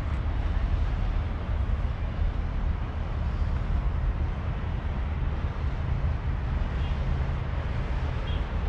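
Steady low rumble of motor traffic and engines, with a constant noisy wash over it.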